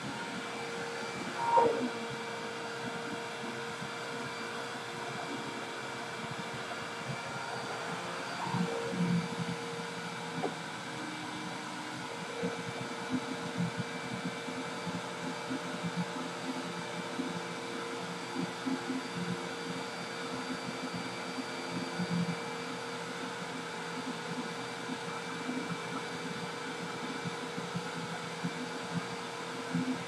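A vacuum cleaner running steadily, with a short squeak about a second and a half in and a few soft knocks later on.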